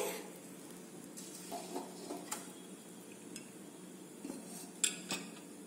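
Glass cake bowl set down inside an aluminium pressure cooker and the cooker's lid fitted on: light scrapes and clinks of glass and metal, with two sharper clicks near the end.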